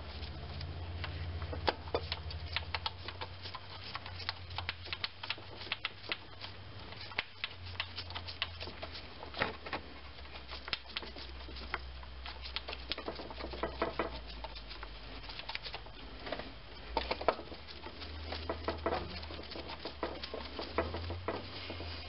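Scattered, irregular small clicks and taps of metal being handled, as a gloved hand threads the starter's mounting bolts in finger tight. A steady low hum runs underneath.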